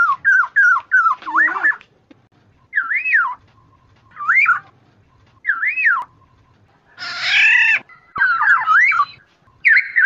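Black-naped oriole song: fluid whistled phrases that glide up and down, a quick run of notes at the start, then single looping phrases about a second and a half apart. A harsher, buzzier call comes about seven seconds in, followed by more whistles.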